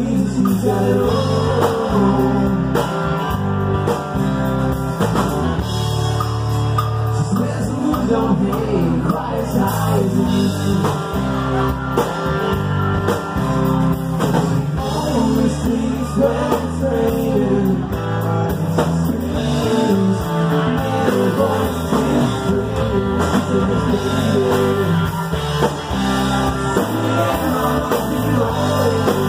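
Live rock band playing a song: drum kit, electric bass, electric and acoustic guitars, with a man singing lead.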